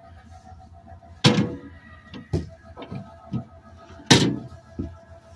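Camper trailer entry door and threshold knocking and banging: two loud bangs about three seconds apart, with several lighter knocks between them.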